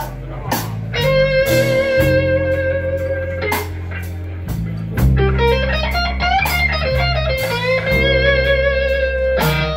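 Live blues band playing: an electric guitar plays a solo of long, sustained notes with vibrato and a slow upward bend about five seconds in, over a bass line and drum hits.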